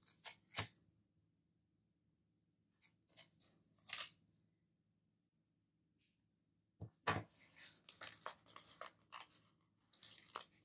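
Paper sticker sheets being handled: short, crisp rustles and clicks, a few near the start, a cluster around four seconds in, then a denser run through the last few seconds. A faint steady low hum lies underneath.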